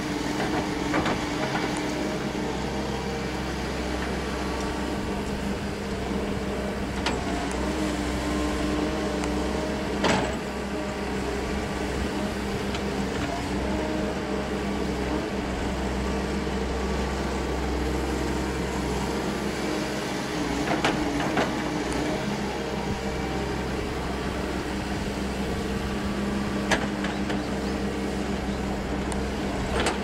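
Doosan wheeled excavator's diesel engine running steadily under load, with a few sharp knocks and clatters as the bucket scoops and dumps soil and stones.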